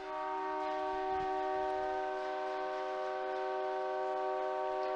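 Hockey arena goal horn blowing one long steady chord, signalling a goal.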